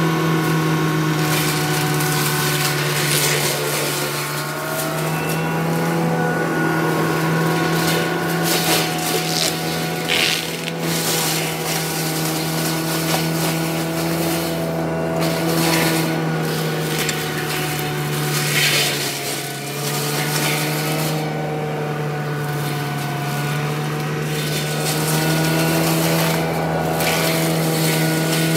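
CAT 299D3 compact track loader's diesel engine running steadily under load while its CIMAF forestry mulcher head spins, a constant hum with overtones. Repeated crackling and grinding surges on top as the mulcher rotor shreds brush and small trees.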